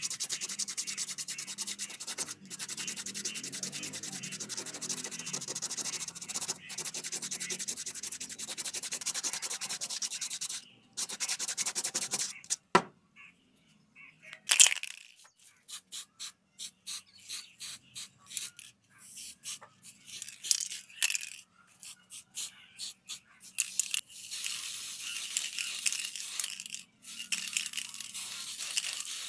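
Sandpaper rubbed by hand over a plastic shower head. For about the first ten seconds the strokes are rapid and continuous, then they become short and broken up, with a couple of sharp knocks.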